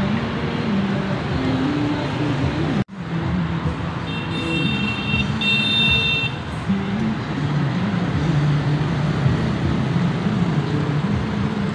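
Motorbike and scooter traffic passing along a road, a steady run of small engines rising and falling as the bikes go by. The sound cuts out for an instant near three seconds in, and a high beep sounds in two parts about four to six seconds in.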